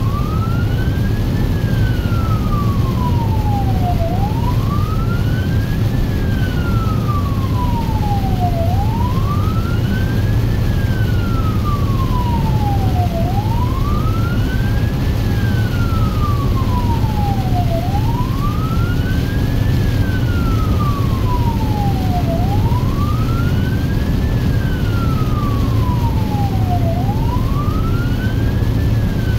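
Emergency vehicle's siren on wail, heard from inside the cab: a tone sweeping up and sliding back down about every four and a half seconds, seven times, over the steady low rumble of the engine and wet road.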